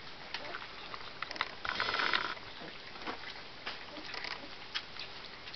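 Several puppies lapping and slurping a milk-and-kibble gruel from a shallow dish: a run of irregular wet clicks and smacks, with a louder stretch of slurping about two seconds in.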